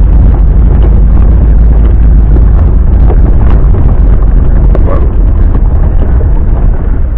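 Off-road car driving over a rutted dirt track, heard from inside the cabin: a loud, steady low rumble of engine and tyres, with a few light knocks from the bumps.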